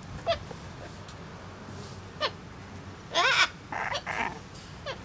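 Young umbrella cockatoos calling. Short calls sliding down in pitch come every couple of seconds, with the loudest, a wavering screech, about three seconds in, followed at once by harsher rasping calls.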